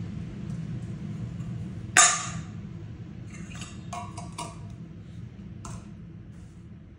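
A stainless steel bowl banged once with a sharp, ringing metallic clang about two seconds in, as a noise-startle test that the mini Goldendoodle puppy is not really scared by. A few lighter metallic clinks and taps follow as the bowl is handled.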